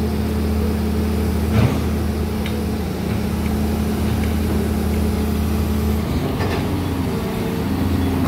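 Crawler crane's heavy diesel engine running steadily, its note shifting about six seconds in, with one sharp metallic knock about a second and a half in.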